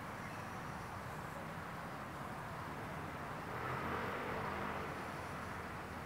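Outdoor ambience: a steady background rush that swells for a second or two about halfway through, then settles back.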